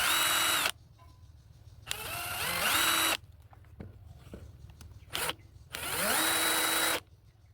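Bosch GDR 120-Li 12V cordless impact driver free-spinning with no load as its variable speed trigger is squeezed in three runs of about a second each, plus a brief blip, the motor whine rising in pitch as it speeds up and then holding steady. The middle run climbs more gradually.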